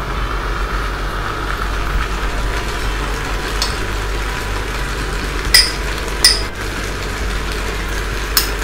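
A metal spoon clinking against a small ceramic bowl as shredded mozzarella is scraped out onto the rice: four sharp clinks, the second and third loudest, over a steady hum and hiss.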